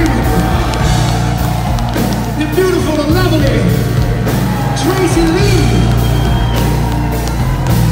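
Live band playing loudly, with electric bass, electric guitar and drums keeping a steady beat of about two hits a second. A voice sings short phrases over it.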